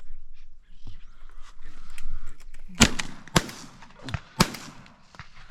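Three shotgun shots fired at birds overhead. The first and loudest comes about halfway in, and two more follow within about a second and a half, each a sharp crack with a short echoing tail.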